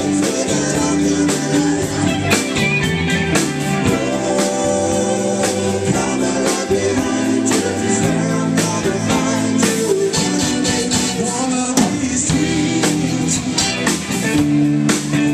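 Live rock band playing: a drum kit keeping a steady beat under Korg Triton keyboard chords, with a man singing.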